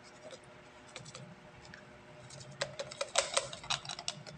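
Plastic bottle packed with dry wood chips crackling and clicking as a hand grips and turns it, a few scattered clicks and then a quick flurry in the second half.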